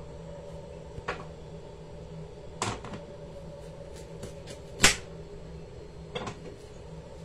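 A kitchen knife scraping the skin off a carrot on a plastic cutting board: four separate sharp scrapes and knocks, the loudest about two-thirds of the way through, with a few faint ticks between, over a steady low hum.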